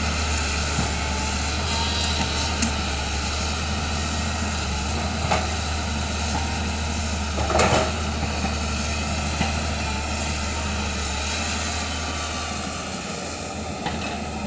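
Diesel engine of a heavy earth-moving machine running steadily under load, with a few short knocks, the loudest about halfway through.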